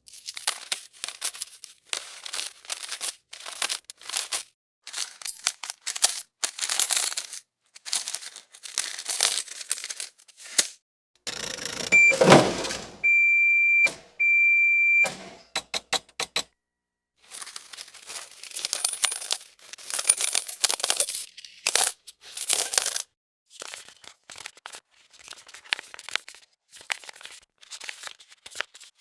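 Money-handling sound effects: runs of quick, crisp rustling and clinking bursts of cash being handled, with short gaps between runs. About twelve seconds in comes a louder swelling sound, then a short electronic beep and two longer ones, the kind a cash register or payment terminal gives.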